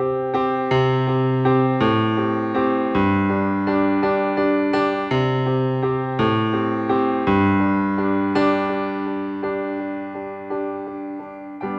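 Keyboard playing a solo instrumental break in a slow song: struck chords that change about every second and fade away between strikes, with a bass note under each.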